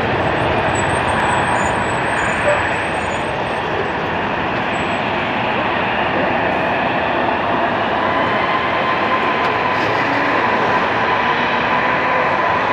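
Airbus A321 jet engines running at takeoff power, a loud steady noise; a faint whine comes in about halfway through and holds.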